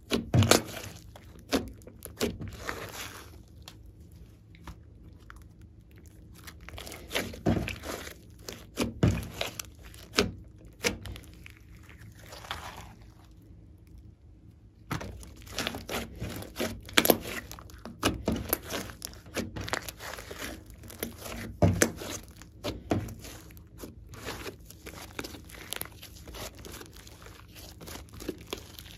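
Glossy slime being squeezed, folded and stretched by hand, giving many irregular clicks and pops, with a quieter spell about halfway through.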